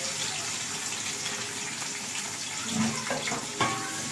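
Sliced onions sizzling steadily in hot fat in an aluminium pot, with a few clinks of a metal spatula against the pot near the end as stirring begins.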